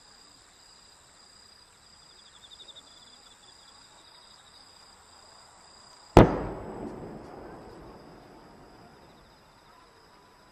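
A single loud firework bang about six seconds in, followed by a rolling echo that fades over a couple of seconds. Before it there is only a faint steady background with thin high-pitched tones.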